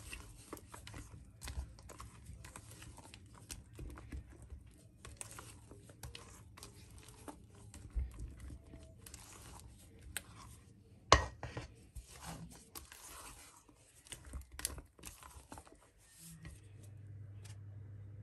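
Silicone spatula folding thick cupcake batter in a stainless steel mixing bowl, scraping irregularly against the metal, with one sharp knock on the bowl about eleven seconds in. A steady low hum starts near the end.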